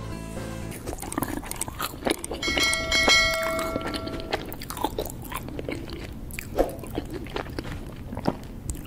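End-screen sound effects: a dense run of crackling clicks, with a bell-like chime ringing for about two seconds near the middle as a subscribe button and bell icon appear.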